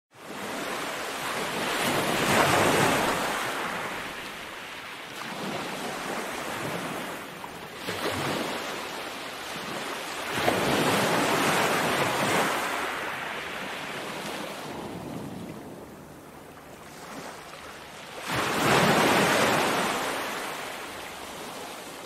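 Small ocean waves breaking and washing up on a sandy beach, the surf swelling and falling away with each wave. Three bigger breakers stand out, a couple of seconds in, around the middle and near the end, with softer washes between them.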